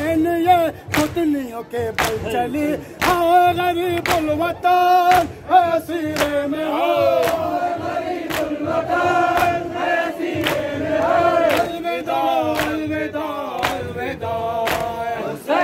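A crowd of men chanting a noha, a Shia mourning lament, in unison, with sharp regular slaps of hands on chests (matam) keeping the beat.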